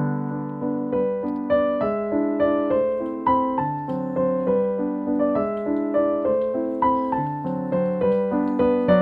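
Background piano music: a gentle melody of struck notes over a steady bass line.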